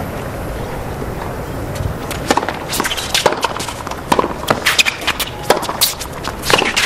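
Tennis rally on a hard court: rackets strike the ball in a run of sharp pops starting about two seconds in, mixed with ball bounces and footwork. A low crowd murmur runs underneath.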